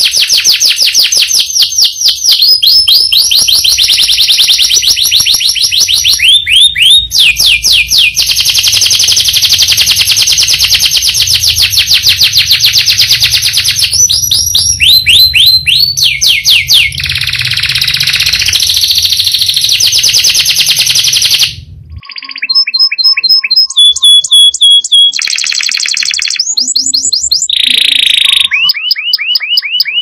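Domestic canary singing a long, unbroken rolling song of fast trills, one rapid phrase running into the next. About two-thirds of the way through the song breaks off and a different canary recording continues, with trills and short clear whistled notes.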